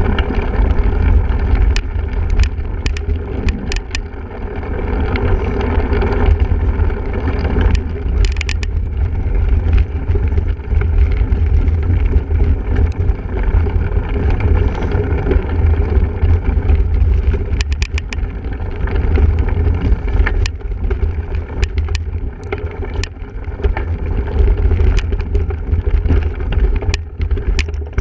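Wind buffeting the microphone and the rattle of a single-speed cyclocross bike ridden over rough ground, with a steady low rumble and frequent sharp clicks and knocks.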